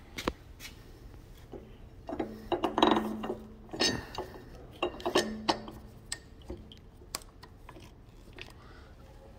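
Metallic clicks and clinks from turning the handwheels of an Acer AGF-1020AHD surface grinder by hand, with the machine not under power. They come in two clusters, about two to four seconds in and again around five seconds, and some carry a brief low ring.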